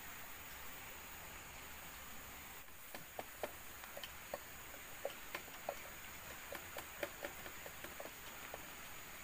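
Irregular sharp snaps and clicks, starting about three seconds in, of jengkol (dogfruit) being broken and peeled by hand, over a steady faint hiss.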